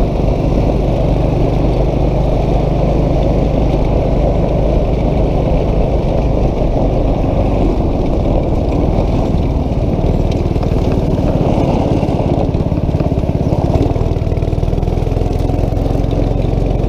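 Go-kart's 8 hp single-cylinder engine running steadily under way, heard from the driver's seat with wind rushing over the microphone.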